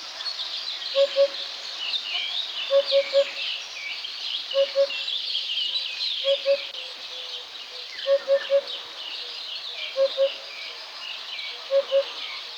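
Eurasian hoopoe calling its low hooting song: groups of two or three soft 'hoop' notes, repeated about every two seconds, over a busy chorus of other songbirds chirping higher up.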